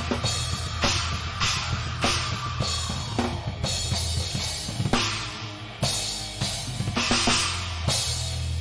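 Live rock band with the drum kit to the fore: steady cymbal crashes and bass drum over a held bass and guitar note, building to a few heavy accented crashes. Near the end the drums stop and the held low note rings on alone.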